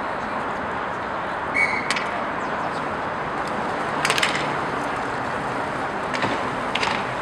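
Inline roller hockey play: a steady rolling hiss of skate wheels on the rink floor, with sharp clacks of sticks and puck about two seconds in, a quick cluster around four seconds and another near the end.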